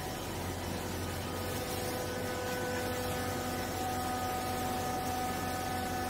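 Vertical hydraulic clothing baler's electric motor and hydraulic pump running with a steady hum and whine while the ram presses down on the clothes. A higher whine joins about halfway through.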